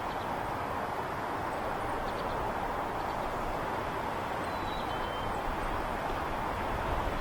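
Steady hum of distant highway traffic, with a short high two-note bird call about five seconds in.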